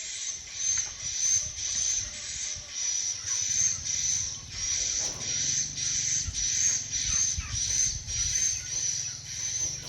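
Swiftlet calls: a dense, high-pitched chirping twitter that pulses about twice a second without a break.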